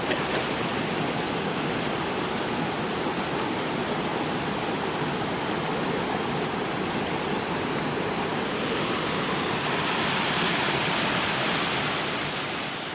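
Stream water rushing over rocks and a small cascade on bedrock, a steady hiss. It grows a little louder and brighter about ten seconds in, then fades out at the end.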